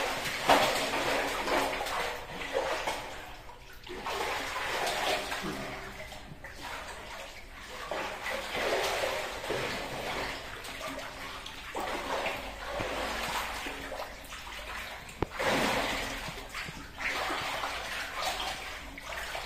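Water splashing and sloshing in uneven surges as several people wade through a shallow channel in a narrow brick tunnel, sweeping a fishing net along.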